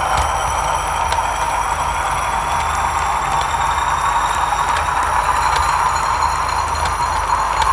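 A model railway train of Pullman coaches rolling steadily past, the wheels running on the track with a few faint clicks.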